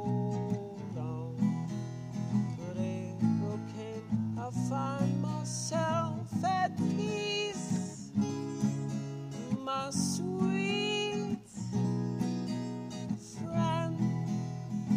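Background music: strummed acoustic guitar with a melody line over it.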